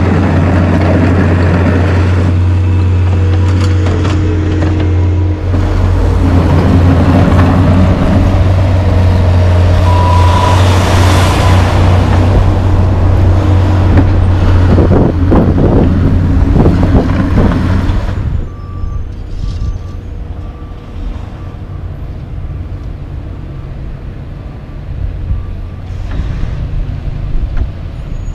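Diesel semi trucks passing close by on the road: a loud, steady low engine drone with a hiss that swells about ten seconds in, then dropping to quieter passing traffic after about eighteen seconds.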